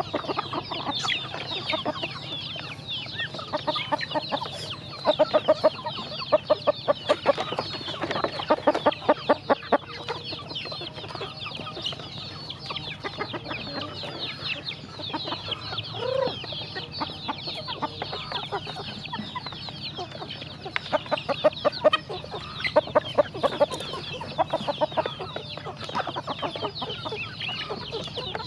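A flock of chickens and ducks feeding: constant clucking and high peeping from chicks, with an occasional lower call. Several times, rapid runs of sharp clicks, about ten a second, come from beaks pecking and dabbling at feed in plastic feeders.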